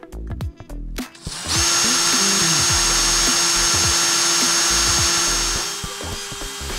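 Cordless drill running at steady speed, its twist bit drilling into a steel washer: a loud, even whine over a cutting noise, starting about a second and a half in and winding down near the end.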